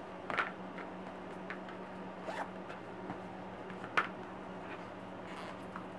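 A vinyl zipper bag being handled and turned: a few short rustles and rasps, the sharpest about half a second in and about four seconds in.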